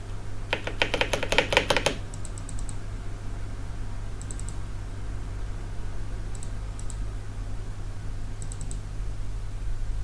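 Computer keyboard typing in a quick run of keystrokes for about a second and a half, then a few light scattered clicks, over a steady low hum from the running PC.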